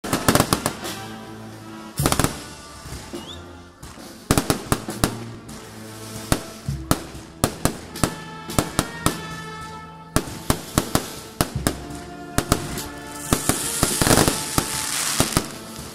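Fireworks and firecrackers going off in a rapid, irregular string of sharp bangs over music with held notes. Near the end comes a loud, sustained hissing rush as spark fountains shoot up.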